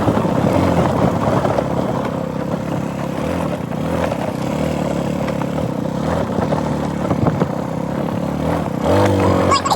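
A vehicle engine runs steadily while driving, with a brief rise in pitch near the end.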